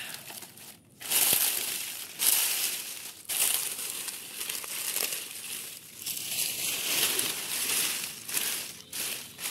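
Dry fallen leaves crunching and rustling as a hand scoops and piles them, in repeated bursts with short pauses, starting about a second in.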